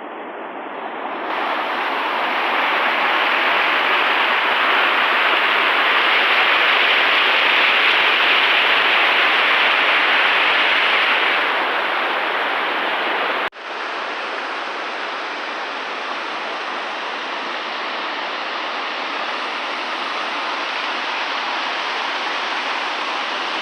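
Cameron Falls waterfall rushing: a loud, steady wash of falling water. It breaks off abruptly about halfway through and resumes a little quieter.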